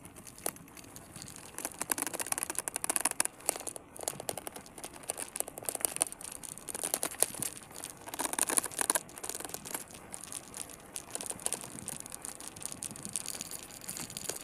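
Irregular crackling and rattling from a phone camera mounted on a bicycle's loose handlebars, jolted as the bike rides over a rough paved road.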